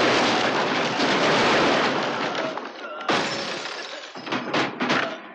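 Film fight sound effects: a long crash of wooden planks breaking and clattering as a body is thrown through them, then another crash and a few short, sharp hits near the end.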